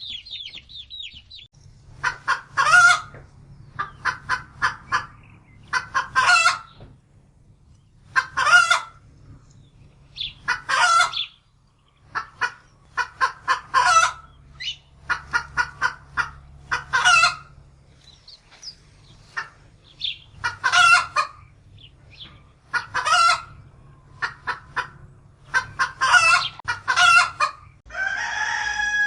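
Chickens clucking in loud clusters of quick clucks that come every second or two. A brief high peeping of chicks opens it, and a rooster starts crowing near the end.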